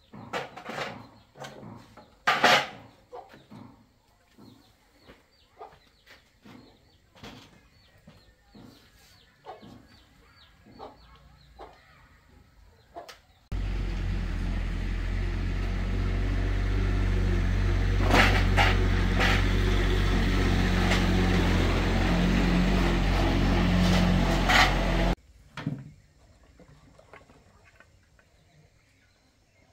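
Small brush-cutter engine running steadily for about ten seconds, starting and stopping abruptly. Before it, light clicks and knocks of hand tools on the engine's metal parts.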